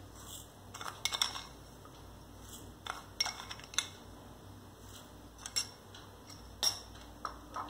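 Steel spoon clinking and scraping against steel and ceramic bowls as sugar is spooned in: scattered light clinks and short scrapes, a few at a time.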